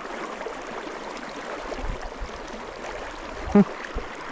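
Shallow river current rippling and gurgling past a canoe's hull, a steady hiss of moving water. A couple of low thumps come through, and about three and a half seconds in there is one short, loud pitched sound.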